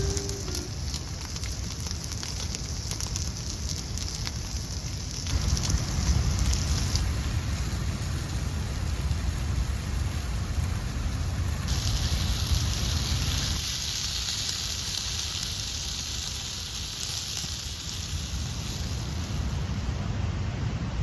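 Steady rain falling, with a low rumble underneath. The sound changes abruptly a few times.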